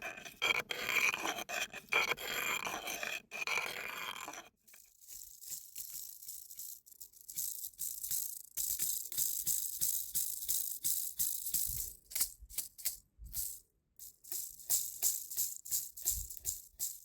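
Music with a hand shaker or rattle shaken in short, uneven strokes. It follows a denser layered passage that cuts off about four and a half seconds in.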